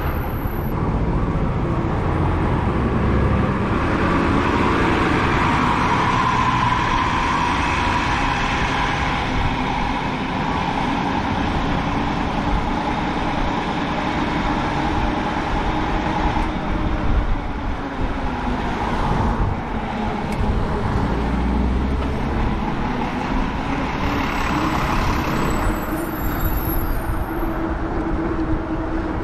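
Steady wind and road noise from riding an e-bike, the Lectric XP, with a tone that drifts slowly up and down in pitch.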